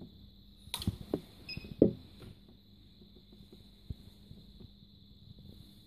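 A few sharp clicks and knocks within the first two seconds, then lighter ticks, as a hand works at an industrial overlock sewing machine and its attached control unit, over a steady faint electrical hum and a high whine from the idle machinery.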